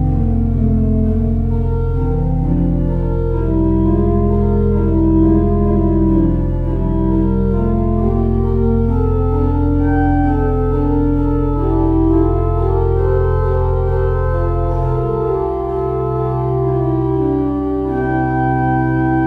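Church organ playing a prelude: sustained chords move over a held bass note, and the bass changes to a new note about three-quarters of the way through.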